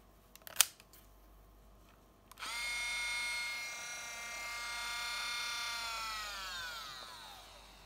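A sharp click as the Olympus Trip 500's sliding lens cover is opened, then a high whine from the camera's electronics with many overtones, steady for about three seconds before it falls in pitch and fades.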